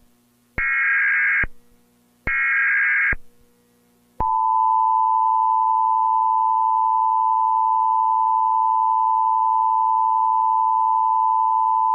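Emergency Alert System test: two about one-second bursts of screeching digital SAME header data tones, then the EAS attention signal, a steady, loud two-tone beep near 1 kHz held for about eight seconds.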